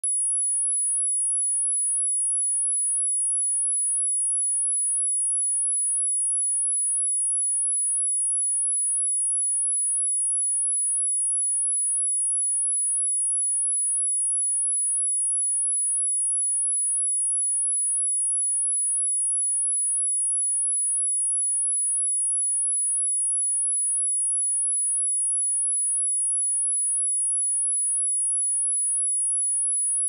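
Pure 10201 Hz sine-wave test tone: one steady, very high-pitched whistle at constant level, used for testing speakers and headphones and for shaking water and dust out of a speaker.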